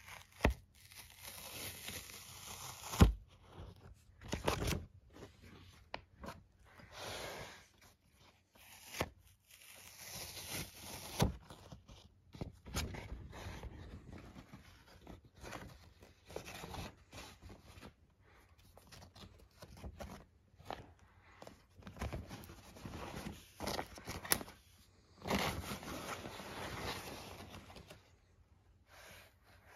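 Apple's white fibrous paper protective wrap being pulled off an iMac by its tabs, tearing and rustling in uneven stretches, with a few sharp snaps.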